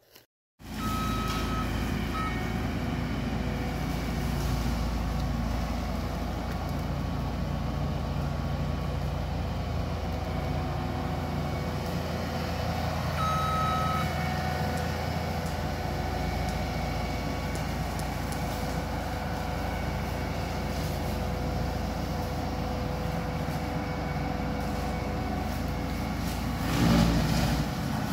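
Alpha Wolf XP brush-cutter mulcher running steadily as it clears brush, its engine and cutting head making a continuous machine noise. A short high tone sounds twice, and the noise swells briefly near the end as it takes a heavier load.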